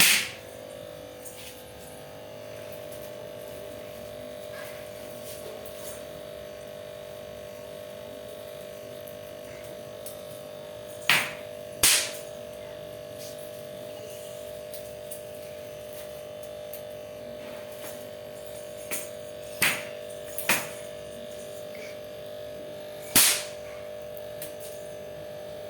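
Throw-down snap-pop firecrackers bursting on the ground: about five sharp cracks at irregular times, two pairs close together, over a steady electrical hum.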